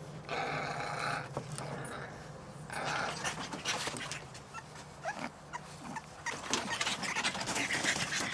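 French Bulldog puppies whining, with two drawn-out whimpers in the first few seconds. A run of small clicks and taps follows in the second half.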